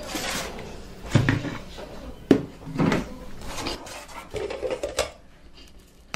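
Plastic food-carrier containers, lids and dishes handled on a table: several separate knocks and clatters.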